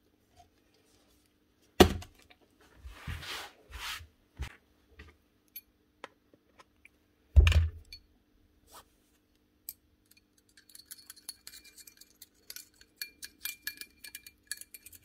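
Small steel nibbler parts handled on a concrete floor: a knock as a part is set down about two seconds in and another about seven seconds in, with a short scrape between. From about ten seconds in, a thin metal rod is worked inside the steel punch guide's bore, giving quick, light scratching and clicking.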